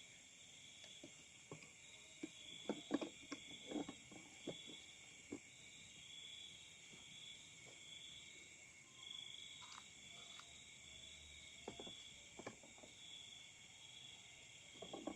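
Night chorus of crickets and other insects: a steady high shrill with one part pulsing in a regular beat. Scattered short knocks and rustles, a cluster of them a few seconds in and more later on.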